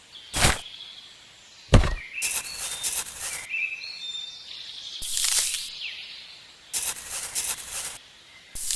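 Two sharp knocks, then several bursts of hissy scraping, with birds chirping in the background.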